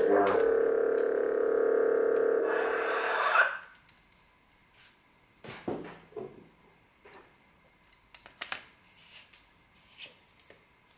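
Custom Graflex lightsaber's CFX sound board playing the blade hum through the hilt's speaker, ending in a hissing retract sound about three seconds in that cuts off suddenly. After that, scattered small clicks and rubs of hands handling the metal hilt.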